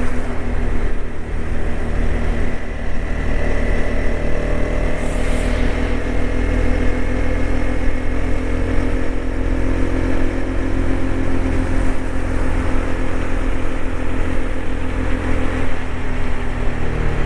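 TVS Apache RTX 300 motorcycle's single-cylinder engine running at a steady highway cruise, with heavy wind rumble on the microphone. The engine note eases slightly lower near the end.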